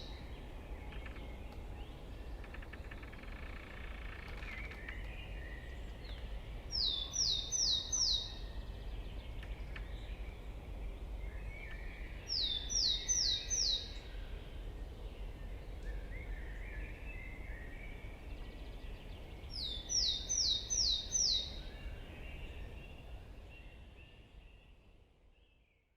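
Wind rumbling through trees with a bird calling three times, each call a quick run of four high, downward-sweeping notes, some six to eight seconds apart. The whole recording fades out near the end.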